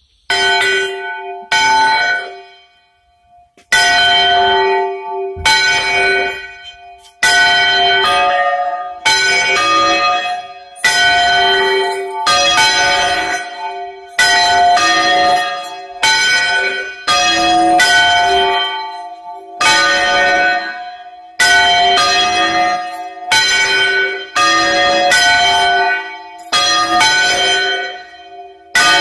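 Two church bells swung round by hand in full turns (Spanish bandeo), each turn giving a loud clang that rings on. Strokes come about every second and a half to two seconds, with a short pause near the start.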